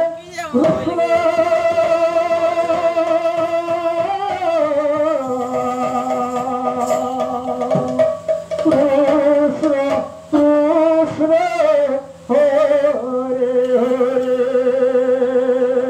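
Kirtan singing: long held notes that waver and slide from one pitch to the next, with short breaks between phrases, over a steady low drone.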